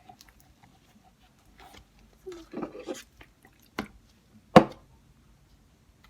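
Slime with freshly added activator being stirred and squished in a cup, making scattered sticky clicks and squelches. One sharp knock, the loudest sound, comes about four and a half seconds in.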